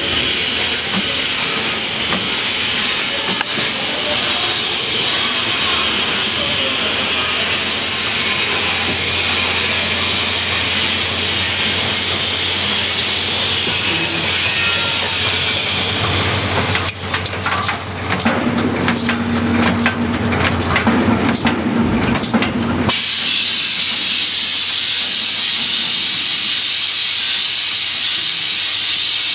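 Glass-bottle beer rinsing and filling machinery running with a steady hiss. For several seconds past the middle the hiss drops away, letting through clinks and knocks of bottles and a low hum, then the hiss cuts back in suddenly.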